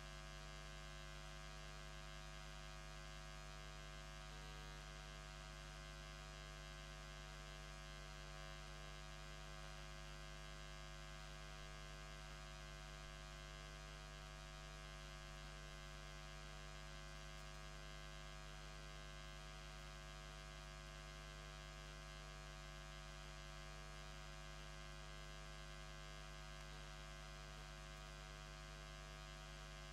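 Faint, steady electrical mains hum, a stack of unchanging tones, with nothing else heard.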